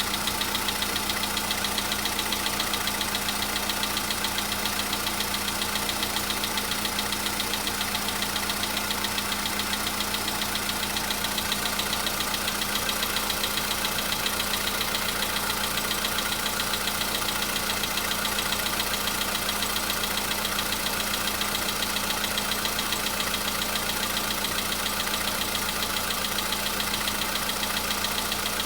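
Volkswagen Polo Sedan's 1.6 CFNA four-cylinder petrol engine idling steadily after a cold start, with a light rhythmic tapping from the top end that the owner takes for cold hydraulic lifters knocking, milder since a fresh oil change and flush.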